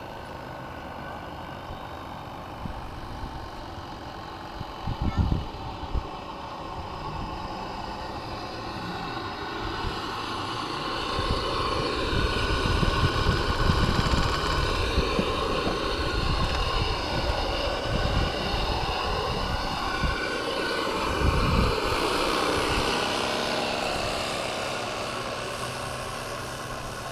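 Hand-made live-steam single-cylinder model speed boat running, a steady high buzz with many overtones whose pitch wavers as it moves. It grows louder through the middle and fades near the end as the boat runs off. A couple of dull thumps come about five seconds in.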